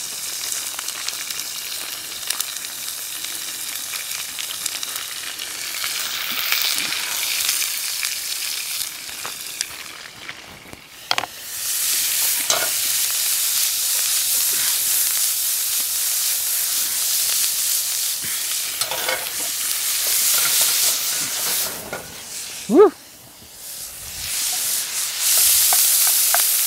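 Ground beef frying in hot oil in a skillet: a steady sizzle, with the clicks and scrapes of a spoon stirring in the pan. The sizzle drops off briefly twice, and a short squeak stands out about three-quarters through.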